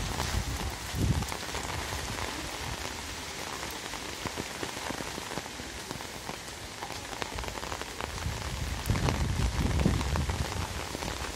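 Steady rain falling, a constant hiss, with low rumbles of gusty wind buffeting the microphone about a second in and again around nine to ten seconds.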